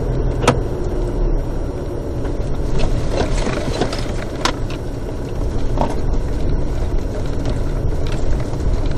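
Four-wheel-drive vehicle driving slowly over a rutted dirt track, heard from inside the cab: a steady low engine and road rumble, with a few sharp clicks and knocks, the loudest about half a second in and again about four and a half seconds in.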